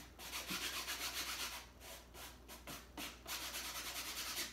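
A hand rubbing a freshly glued paper butterfly onto the side of a plastic milk jug to press it down so it sticks. The scratchy rubbing comes in quick back-and-forth strokes with a couple of brief breaks.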